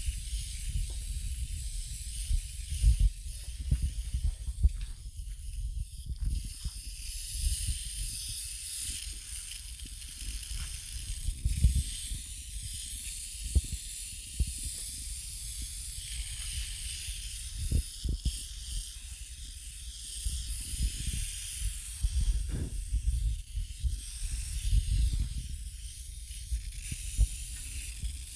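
Fine shower of water from a spray nozzle falling on potted succulents and their gravel, a steady hiss throughout. Irregular low thumps come and go under it.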